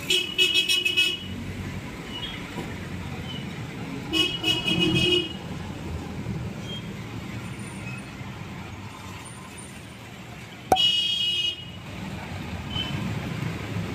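Road traffic rumbling, with three short horn honks lasting about a second each: at the start, about four seconds in, and near eleven seconds.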